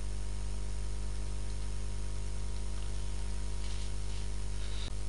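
Steady electrical mains hum with its overtones over a constant hiss, with a faint click near the end.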